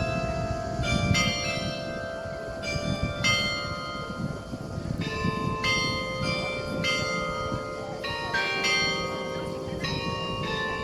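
Several church bells of different pitches ringing together for noon, struck strokes overlapping irregularly about once a second, each note ringing on into the next.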